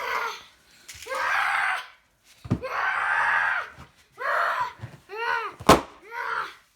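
Screams and yells, a string of short loud cries one after another, broken by a sharp pop about two and a half seconds in and a louder one near the end.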